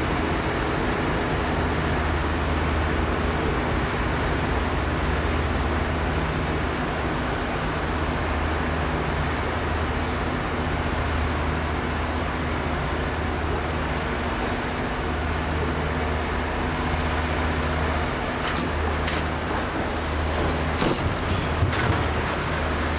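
Passenger train moving slowly, heard from on board: a steady rumble with a low hum underneath, and a few sharp clicks near the end.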